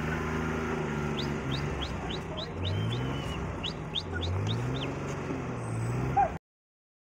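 A flock of sheep and goats passing on a road, with two low calls that rise in pitch and a quick series of short high chirps. The sound cuts off suddenly near the end.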